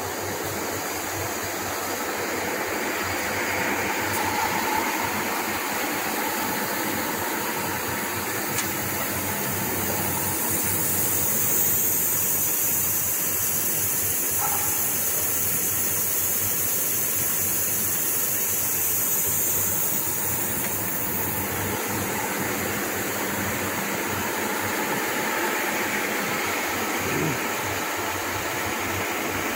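TAFA wire-arc spray gun spraying metal onto a turning hydraulic screw shaft, a steady hiss of its atomising air. The hiss turns brighter and louder for about ten seconds in the middle.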